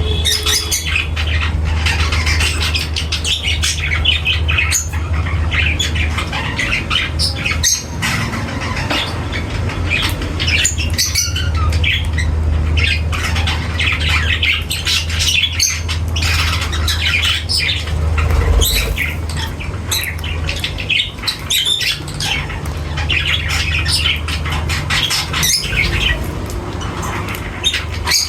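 A flock of small pet parrots, budgerigars and lovebirds, chattering and squawking without a break, with a steady low hum underneath.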